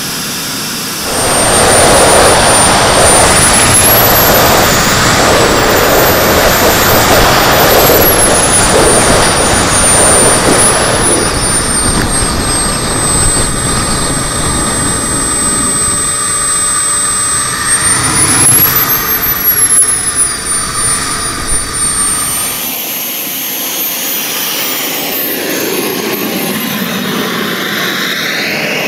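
Model jet's miniature gas-turbine engine heard through an onboard camera: a high whine that rises and falls with the throttle over heavy rushing wind. For the last several seconds a model F-16's turbine is heard from the runway side, its whine gliding in pitch.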